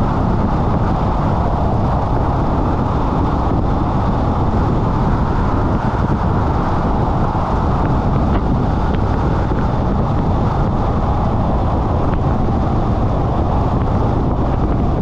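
Steady road and wind noise from a car driving along: tyre rumble and wind buffeting the microphone, unchanging throughout.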